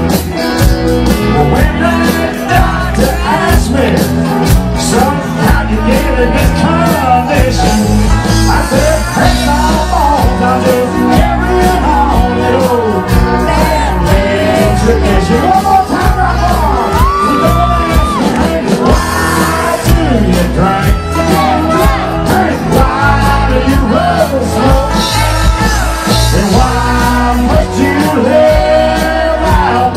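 Live country-rock band playing loud and steady: electric guitar, bass, drums and keyboards, with singing and some shouts over the music.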